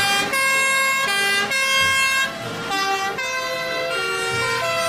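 Toy fire engine's electronic siren sound playing a buzzy, horn-like tune of held tones that step to a new pitch about every half second.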